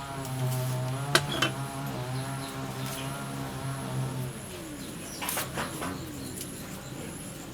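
An engine running steadily, its pitch dropping as it fades away about four seconds in, with a few sharp clicks.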